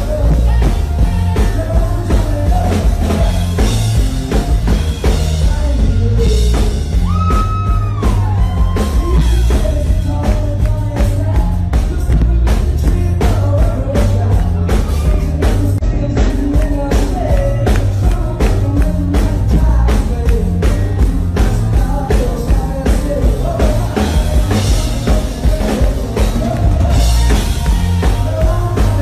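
A live rock and roll band playing: electric guitar, a drum kit keeping a steady beat, and a male lead vocal, with a bent guitar note about seven seconds in.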